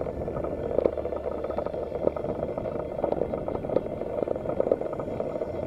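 Mountain bike rolling fast over a bumpy grass track: a steady rattle of the bike and its handlebar with many small knocks, over the rumble of the tyres in the grass.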